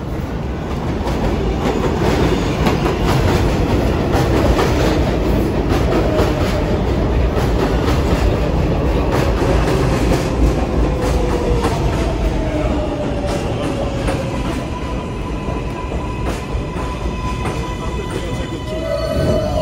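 R142A subway train pulling into the station: wheels clattering on the rails, the motors' whine falling in pitch as it slows. A steady higher tone holds for the last few seconds before it stops.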